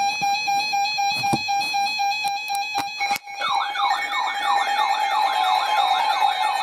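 Electronic alert sound: a steady chord of several held tones, then from about three seconds in a fast warbling siren tone that rises and falls about three times a second.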